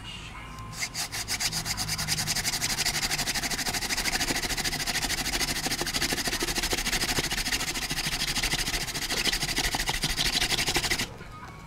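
Wooden hand-drill spindle spun back and forth between the palms on a willow hearth board, the tip grinding into the wood with a fast, rhythmic rasping as it chars a hole for a friction-fire ember. It starts about a second in and stops abruptly near the end.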